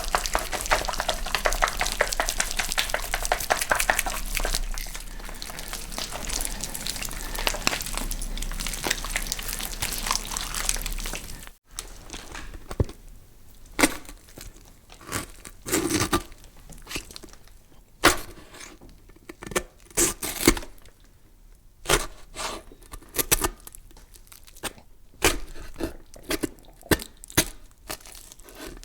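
Horror foley of a meat carcass's rib cage being shaken: a dense, wet crackling rattle that fades and cuts off about twelve seconds in. After a brief break comes wet carving of meat, a run of separate scraping cuts about one to two a second.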